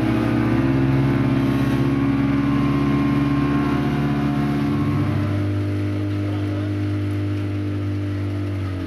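Motorboat engine running steadily, its pitch stepping down about five seconds in and again near the end as the engine slows.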